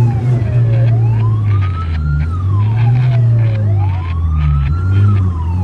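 Emergency-vehicle electronic siren on wail, slowly rising and falling about every three seconds, heard from inside the cab over the vehicle's engine running underneath.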